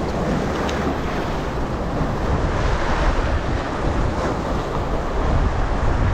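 Steady wind buffeting the microphone over the wash of sea waves.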